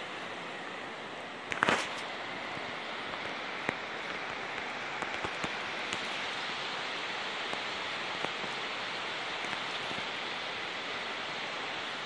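Steady hiss of water, from rain or running floodwater, with faint scattered ticks and a brief louder crackle about two seconds in.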